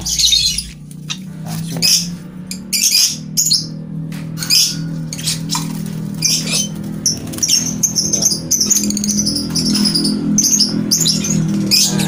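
Lovebirds calling in a rapid series of short, high-pitched chirps and squawks, with a low steady hum underneath.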